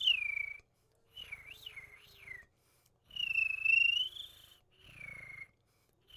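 Beatbox hummingbird whistle, also called the uvula whistle: a high mouth whistle with a low throaty rattle of the vibrating uvula underneath. Four short phrases: a falling chirp, a double up-and-down warble, a longer held tone, and another falling chirp.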